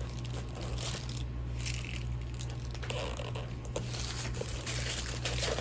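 Rustling and crinkling of the clear plastic wrap around a handbag's sling strap as it is handled and fastened to the bag, with a few small clicks.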